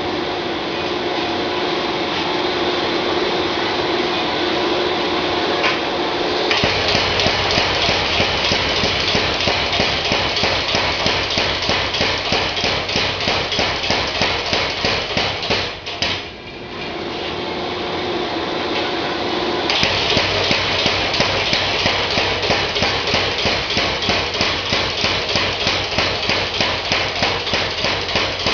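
Mechanical power hammer pounding hot iron in a rapid, even rhythm of several blows a second, drawing down a bar into a tapered pin. The blows are lighter for the first few seconds and harder after that. They break off briefly about halfway, then start again.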